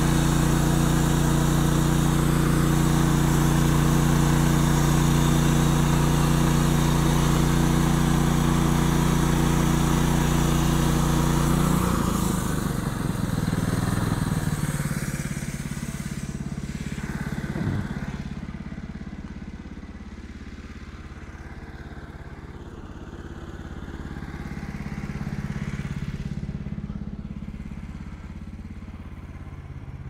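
Norwood LM29 portable band sawmill's gas engine running hard as the band blade saws through a log, loud and steady. About twelve seconds in the cutting noise stops and the sound falls away to a quieter, steady engine idle, with a couple of light clicks near the end.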